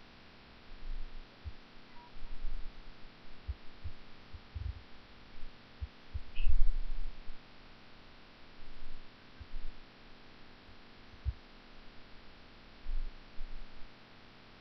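Irregular dull, low thumps and bumps from cables and plugs being handled and pushed into the back panel of a desktop PC tower, over a faint steady hum. The loudest bump comes about six and a half seconds in.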